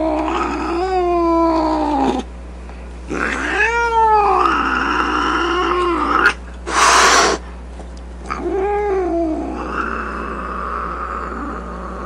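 Domestic cat caterwauling: three long, drawn-out yowls that waver up and down in pitch, with a short hiss between the second and third.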